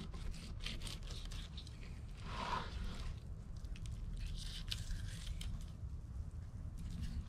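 Fillet knife cutting along a sheepshead's bony rib cage and skin, making irregular scrapes, crunches and small ticks, with a longer scrape about two and a half seconds in.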